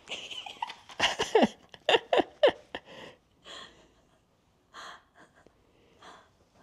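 A woman laughing: breathy puffs, then a run of sharp laughs that fall in pitch about a second in, trailing off into softer breaths.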